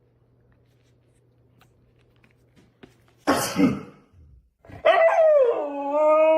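A dog gives a short, sharp, noisy huff about halfway through. A second and a half later it starts a long howl that drops in pitch and then holds steady.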